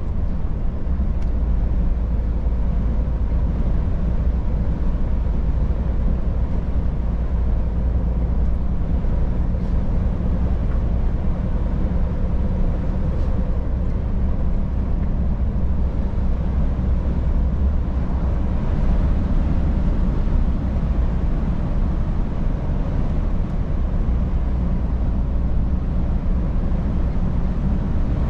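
Scania S500 truck on the move, its 13-litre straight-six diesel and road noise making a steady low drone.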